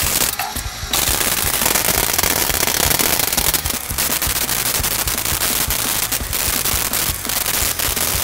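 Wire-feed welder's arc crackling steadily as metal exhaust tubing is welded. It stops briefly just under a second in and has short breaks about four and six seconds in.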